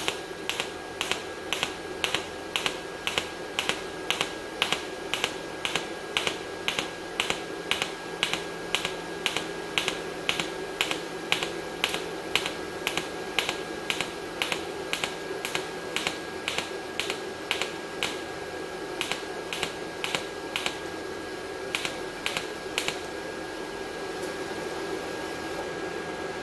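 Andeli inverter TIG welder in its pulsed 'cold' spot-weld mode, firing the arc in short pulses on thin stainless exhaust tubing: a sharp snap about twice a second, pausing briefly twice and stopping a few seconds before the end. A faint steady high tone lies underneath.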